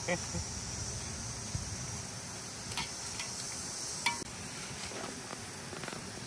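Steady high-pitched insect chorus, crickets or similar, with a few sharp clicks, the clearest about three and four seconds in.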